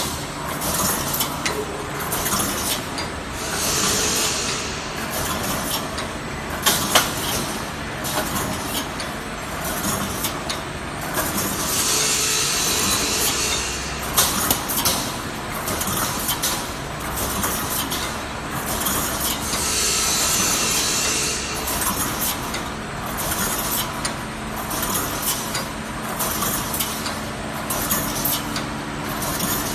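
Automatic wire mesh welding machine running while it produces 358 fence mesh, a steady clattering machine noise with sharp clicks and knocks. A hiss comes three times, about eight seconds apart.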